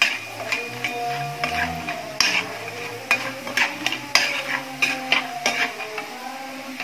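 Metal spatula stirring and scraping diced potatoes as they fry in oil in a wok: irregular clinks and scrapes of the spatula against the pan.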